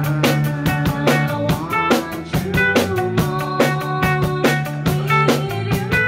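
Live rock band playing loud: electric guitar, bass guitar and drum kit, with a steady drum beat driving it.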